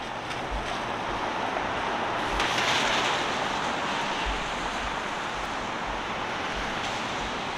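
Downtown street traffic noise: a steady hiss of vehicles. One passes close and swells about two and a half seconds in, then fades after a second. Scattered low thumps come through under it.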